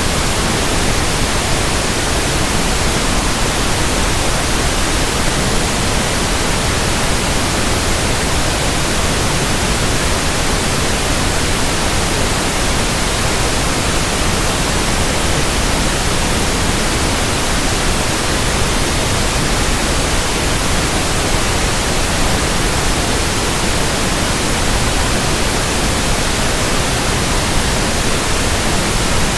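Steady pink noise: an even, unbroken hiss with no tones or rhythm, spread from the deep bass to the high treble, played as a speaker burn-in signal.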